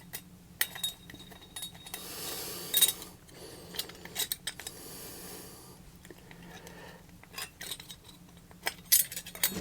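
Small metal clicks and clinks of screws and a metal mounting bracket being worked off a hard drive, with two stretches of scraping about two and four seconds in.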